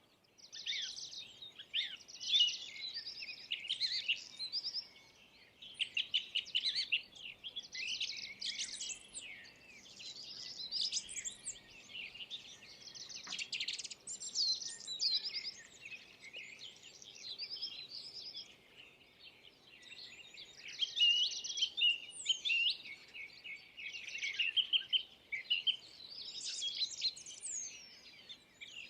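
Several small songbirds chirping and singing together in rapid, overlapping high-pitched trills and twitters, with short pauses around six, twelve and nineteen seconds in.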